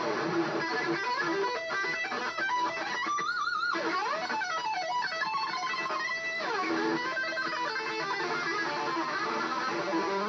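Amplified electric guitar playing a fast lead line of quick runs, with a held note shaken by wide vibrato about three seconds in and pitch swoops down and back up around the middle.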